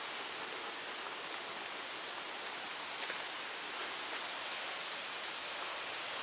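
Steady hiss of wind through leaves in stormy weather, with a few faint ticks about three seconds in and again later on.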